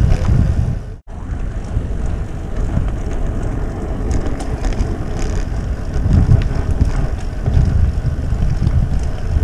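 Wind rushing over the microphone of a camera mounted on a moving road bike, a steady low rumble mixed with tyre noise on the paved path. It cuts out briefly about a second in, then carries on.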